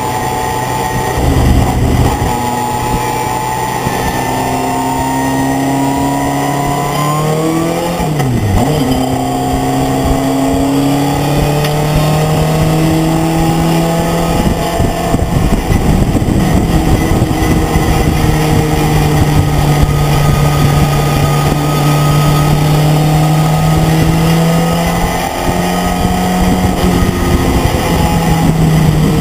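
Pickup racing truck's engine at racing load, heard from inside the cabin, with its note slowly rising and falling through the corners and a quick drop and recovery about eight seconds in, over steady road and wind noise.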